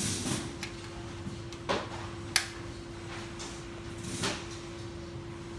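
Hand work with small parts at an assembly bench: a few soft knocks and one sharp click about two and a half seconds in, over a steady low hum.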